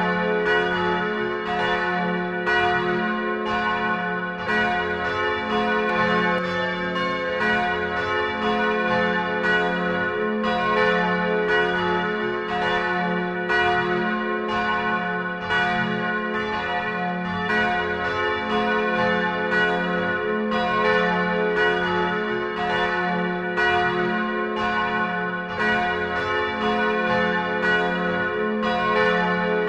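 Several church bells ringing together in a peal. Strikes come a little more than once a second and overlap over a continuous ringing hum.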